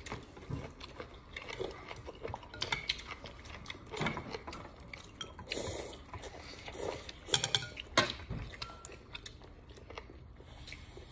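Metal spoon and chopsticks clinking against a soup bowl, with chewing and a slurp of noodles about halfway through. A few sharp clinks come close together near the end.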